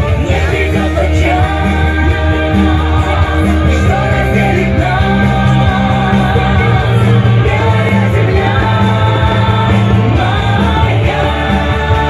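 Music: a song with singing over instruments.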